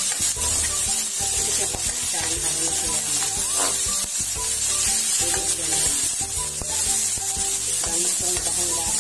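Pork, garlic and onion sizzling in hot oil in a metal wok while a metal spatula stirs and scrapes through it, with background music playing underneath.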